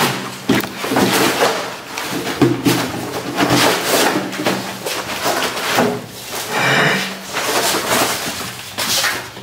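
Sheets of cardboard being pulled, folded and pushed flat on a tiled floor: irregular rustling and scraping with small knocks.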